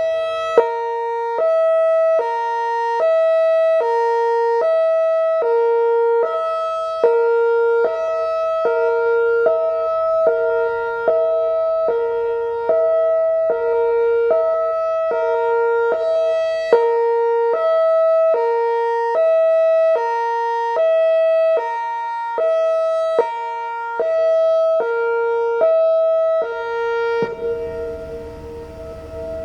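Whelen WPS-4004 electronic outdoor warning siren sounding a hi-lo tone, switching between a lower and a higher pitch about twice a second. Near the end the switching stops and the sound drops in level, with a low rumbling noise underneath.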